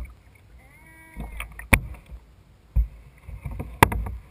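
Kayak paddling: a few sharp hollow knocks of a paddle against a plastic kayak hull, the last the loudest, over a low steady rumble.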